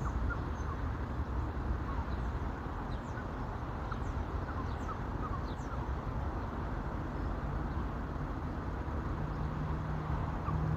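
Steady wind rumble on the microphone with many short bird chirps. A faint low steady hum comes in near the end.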